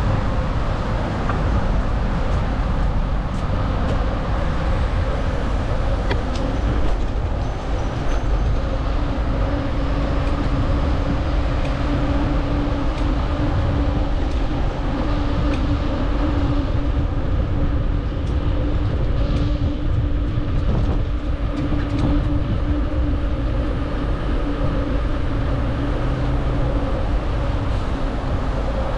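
Steady wind rush and tyre rolling noise on a bicycle-mounted GoPro riding along a paved path, strongest in the low rumble. A steady low hum runs through the middle of the ride for about fifteen seconds.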